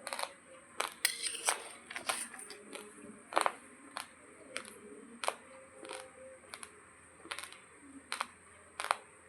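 Raw long-grain basmati rice crunched between the teeth: sharp, irregular cracks, about one or two a second.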